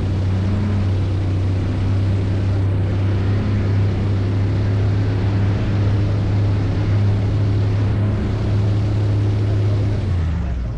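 Airboat engine and large air propeller running steadily with a deep drone, dropping in pitch and level near the end as it throttles down.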